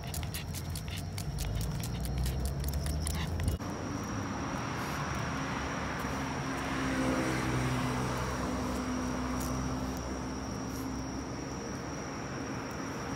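A pug panting fast, about seven breaths a second, worn out by the heat. After about three and a half seconds the sound cuts to softer snuffling and low grunts as the pug sniffs about, with a steady high hum behind.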